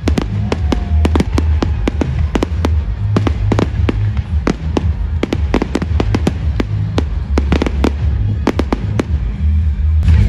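Fireworks display: quick, irregular bangs and crackles, several a second, over loud music with a heavy bass.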